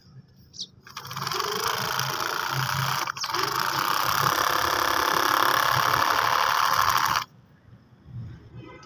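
Small electric gear motor of a wired DIY toy tractor whirring steadily, switching on about a second in, dipping for a moment near three seconds, and cutting off suddenly after about seven seconds.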